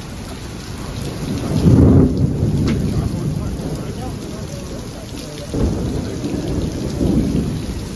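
Heavy rain pouring down onto paving and parked cars in a steady hiss. Two deep low rumbles swell up and die away, the loudest about two seconds in and another around six seconds in.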